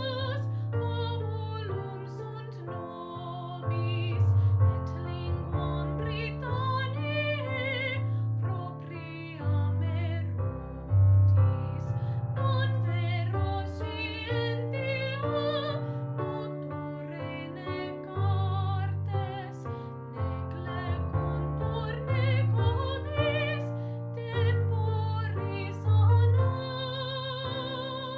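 A woman singing in a classical, operatic style with vibrato, accompanied by piano.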